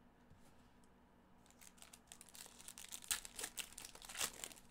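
The plastic foil wrapper of a 2023 Panini Prizm Football retail pack crinkling as it is torn open by gloved hands. It starts about a second and a half in and gets louder, with the sharpest crackles near the end.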